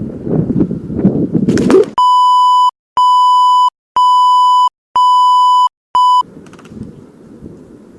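Loud low rumbling of wind and handling noise on the microphone, then an electronic beep tone repeated about once a second, five times with the last one cut short, with total silence between the beeps.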